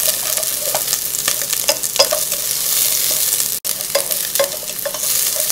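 Sliced shallots sizzling in hot vegetable oil in a non-stick pot as they fry to golden, stirred with wooden chopsticks that click and scrape against the pot now and then.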